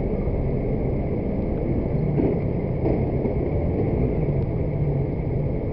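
Steady low rumble of idling and slow street traffic: vehicle engines running at a stop, recorded by a dash camera.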